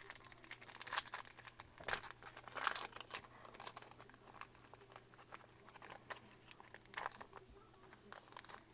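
Foil wrapper of a Yu-Gi-Oh booster pack being torn open and crinkled: a flurry of tearing and rustling in the first three seconds, then softer occasional crinkles with one more burst about seven seconds in.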